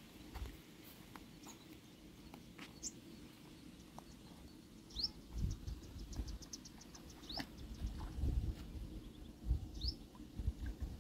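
Birds calling: three short rising whistled notes about two and a half seconds apart, with a fast ticking trill between the first two. Irregular low thumps and rumble sound underneath from about halfway.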